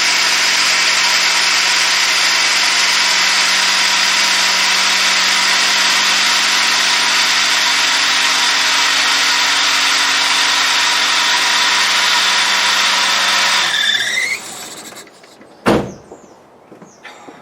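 Austin Princess engine running with its auxiliary belt squealing loudly and steadily. It is shut off about fourteen seconds in, the squeal dying away, and a single sharp knock follows.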